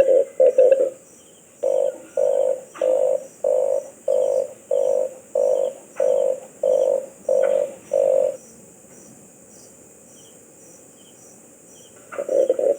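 Red collared dove giving a run of about eleven short, low coos, evenly spaced about two a second. A pause of a few seconds follows, then a faster run of coos starts near the end.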